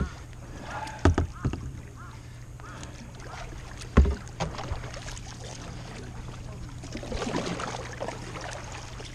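Kayak paddle strokes in calm water, with a few sharp knocks, the loudest about four seconds in, and a stretch of louder splashing near the end.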